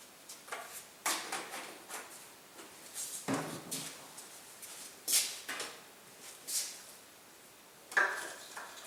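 Motor oil bottles being handled while oil is added to the engine: a string of irregular knocks, clicks and rustles.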